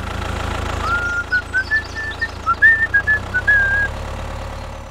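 A tractor engine idling with a steady low rumble, and a short tune of about a dozen whistled notes over it from about a second in until near four seconds.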